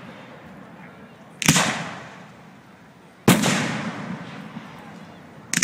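Aerial fireworks shells bursting: three sharp booms about two seconds apart, each fading out in a long echo, the last a quick double bang near the end.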